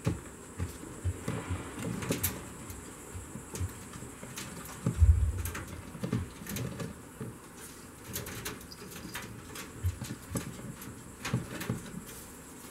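Baby squirrels scrambling about a wire-mesh cage: scattered light clicks and scratches of claws on the wire and rustling of bedding, with a dull thump about five seconds in.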